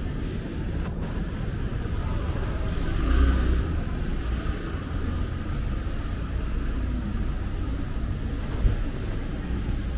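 Street traffic rumbling steadily, with a vehicle passing louder about three seconds in and a single brief thump near the end.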